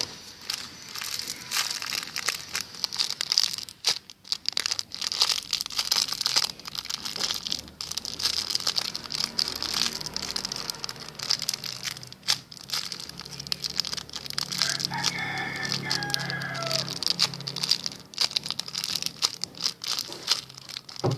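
Plastic packaging crinkling and rustling as squishy toys are handled, with a rooster crowing once, about two seconds long and falling at the end, roughly fifteen seconds in.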